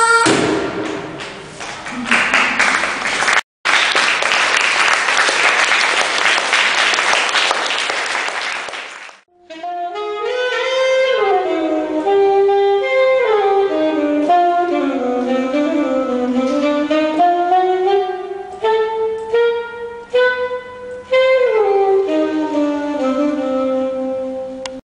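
About nine seconds of applause, then a short gap. After it, a solo saxophone plays a slow, sliding melody until the end.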